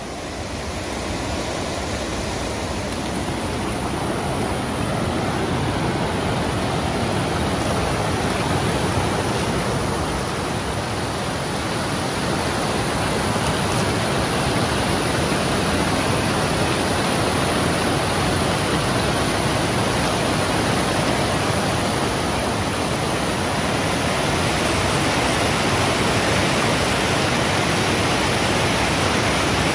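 Fast creek rushing over rocks and logs, a steady wash of whitewater that grows louder over the first few seconds, then holds.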